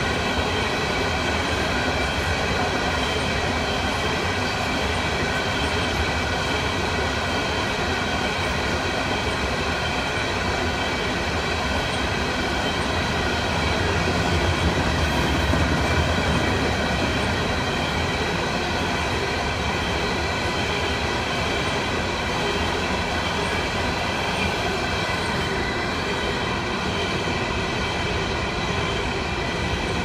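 Open-top hopper cars of a freight train rolling past, a steady rumble of steel wheels on rail with several steady high-pitched tones running over it; it swells slightly about halfway through.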